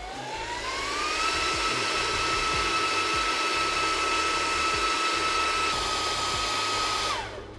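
Chillout Systems Cypher micro cooling unit running: a motor whine rises in pitch for about a second as it spins up after being switched on, then holds steady over a rush of air. About seven seconds in the whine drops and the sound dies away as the unit shuts down.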